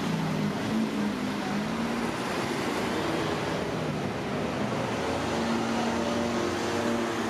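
Steady street traffic noise: a constant rush of passing vehicles, with low engine hums coming and going.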